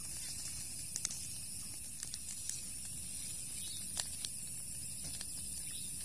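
Steady high-pitched chirring of night insects, with scattered small clicks and crackles close by.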